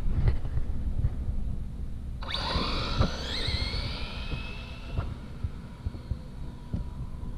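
A Losi 22S no-prep drag car on a stock 2S setup launches about two seconds in. Its electric motor and gears set up a sudden whine that rises in pitch as the car accelerates away, then fades as it pulls away down the street. A low rumble of wind on the microphone runs underneath.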